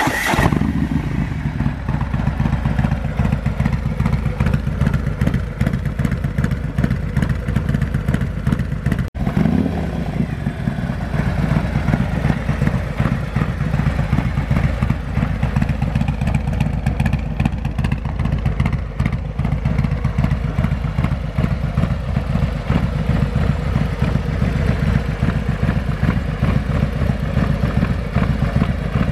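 Harley-Davidson Milwaukee-Eight V-twin engine of a Street Glide running steadily, with a short rev that rises in pitch about nine seconds in.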